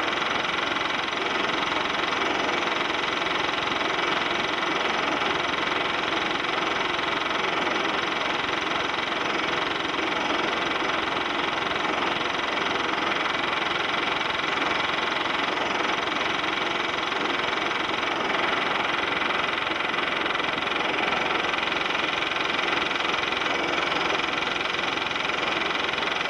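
Steady mechanical running noise of a film projector, an unchanging whirr and clatter with no speech or music, left on the soundtrack of an old silent film transfer.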